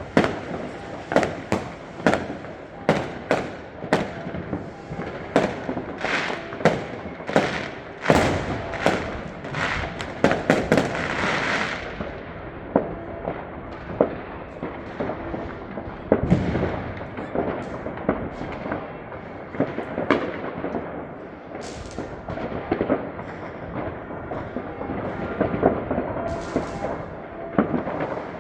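Fireworks going off all around: a rapid run of sharp bangs over roughly the first twelve seconds, with a crackling hiss about eleven seconds in. After that the bangs come more sparsely, with low rumbling echoes between them.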